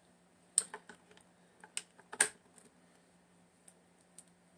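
Scattered sharp plastic clicks and taps from a Dymo label maker being handled, the loudest about half a second and two seconds in, with a few lighter ticks later.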